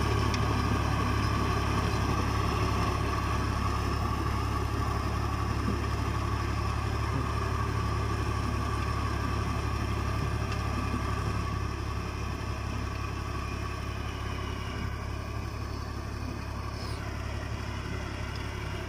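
Farm tractor's diesel engine running steadily under load as it pulls a rotary tiller through dry soil, slowly fading as the tractor moves away.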